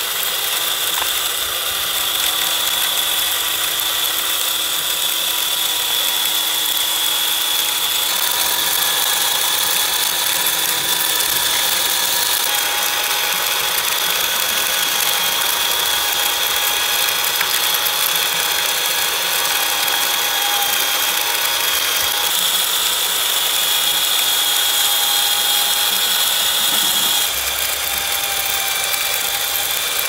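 The electric drum motor and gearbox of a Huina remote-control concrete mixer truck, running with a steady high-pitched whine and gear chatter as the drum turns to discharge concrete down the chute. Near the end, the high tone drops out and the sound gets slightly quieter.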